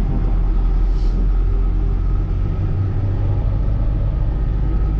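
GAZelle Next light truck driving, its engine and road noise heard as a steady low rumble from inside the cab.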